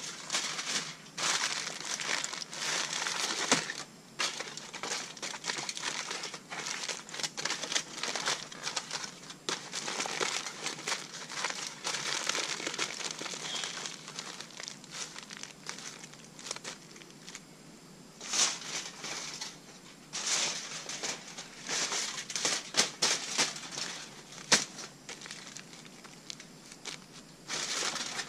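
Aluminium foil crinkling and crumpling as a foil food packet is folded and pinched shut by hand, in irregular rustling crackles, with several sharper, louder crinkles in the second half.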